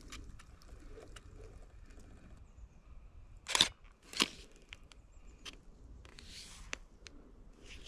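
Dry, dead vegetation crunching and rustling close by: two loud crunches a little over half a second apart in the middle, with small scattered clicks and softer rustles around them.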